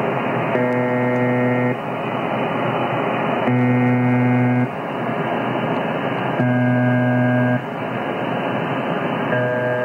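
Software-generated imitation of the UVB-76 'Buzzer' shortwave station from Spectrum Lab's test tone generator: a harsh buzz pitched around 124 Hz sounds for about a second, roughly every three seconds, over steady radio-like hiss. Three buzzes sound in full and a fourth begins near the end.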